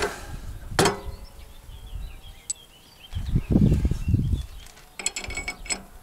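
Hand ratchet wrench working the wheel-hub bolts on a flail mower: sharp metallic clicks and a quick run of ratchet clicks and clinking metal near the end, with dull low rumbling knocks in the middle.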